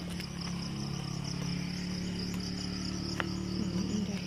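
Insects chirping in a steady, rapidly pulsing high trill, with a steady low hum underneath and a single short click about three seconds in.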